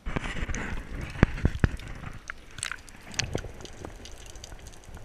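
Underwater sound picked up through a camera's waterproof housing: a low rumble of moving water with scattered sharp clicks and crackles, a few louder clicks coming close together about a second and a half in.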